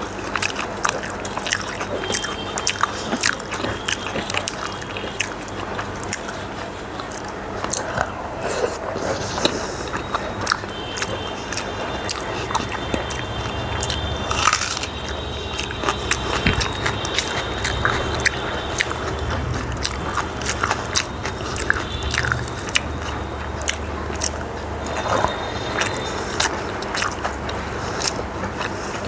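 Close-up eating sounds: chewing a hand-fed mouthful of rice and dal with many wet mouth clicks and smacks. About halfway through comes a louder crunch of a bite into raw onion.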